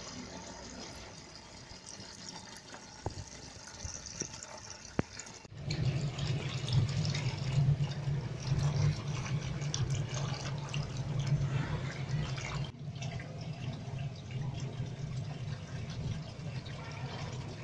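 Sesame oil pouring and trickling into a metal bucket, then poured through a plastic funnel, with a low steady hum beneath the pouring from about five seconds in.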